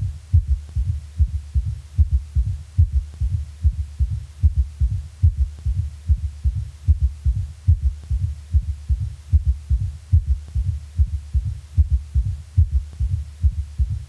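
Heart sounds as heard through a stethoscope: a quadruple rhythm, with the third and fourth heart sounds both present alongside the first and second at a normal heart rate, so each beat is a repeating cluster of low thuds. A low steady hum lies beneath.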